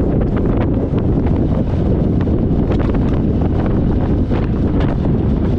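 Steady wind buffeting the microphone of a motorcycle rider at road speed: a dense, even low rush.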